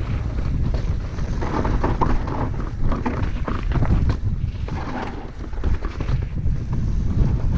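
Wind buffeting the microphone of a chest-mounted action camera as a mountain bike rolls down a rocky dirt trail, with the tyres crunching over dirt and rock and many short knocks and rattles from the bike.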